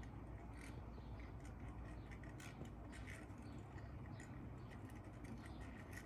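Casablanca Delta ceiling fan running in reverse: a faint, steady low hum with irregular scraping and ticking several times a second from its bad bearings.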